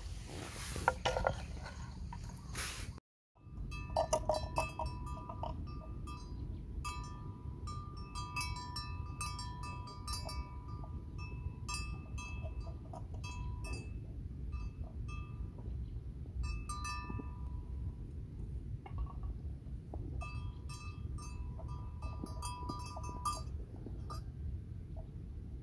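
Small metal bell clinking and ringing in short, irregular clusters, over a steady low background rumble. The sound cuts out for a moment about three seconds in.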